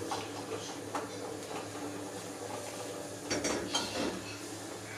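Light clinks of a steel pot and metal utensils over a steady faint hiss, with a few louder clinks about three and a half seconds in.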